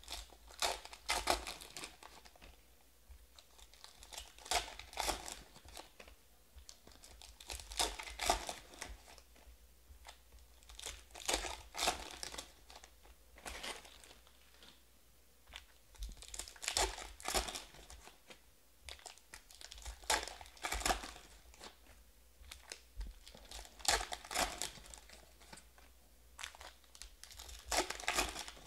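Foil wrappers of Panini Prizm football card packs being torn open and crinkled, in short crackly bursts every three or four seconds.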